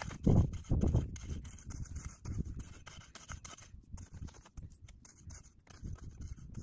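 Weasel Garden Claw, a hand-twisted tined cultivator, grinding and scraping through dry, sandy garden soil as it breaks up the bed: an irregular run of gritty scrapes and crunches, the loudest near the start.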